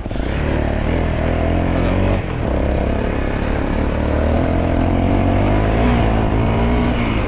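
Off-road motorcycle engine running while ridden along, its note dipping briefly about two seconds in and then picking back up.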